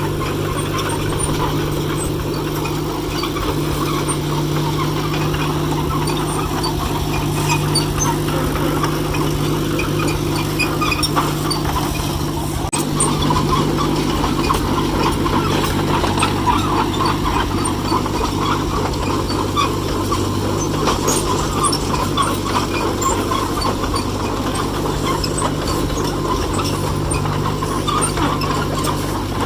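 John Deere 1010 crawler dozer's engine running steadily while the machine is driven around, with scattered light clinks over it.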